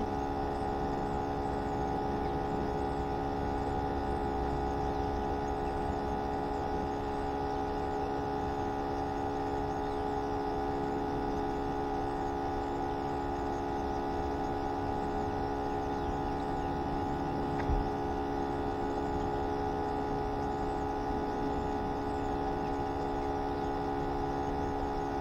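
Steady whine of a bait tank's aerator pump right under the microphone, a hum of several fixed tones that does not change. A single short thump comes about two thirds of the way through.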